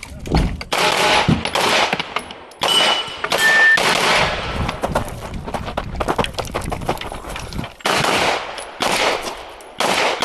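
Pistol shots fired in quick strings, with short pauses between the strings, during a competitive action pistol stage.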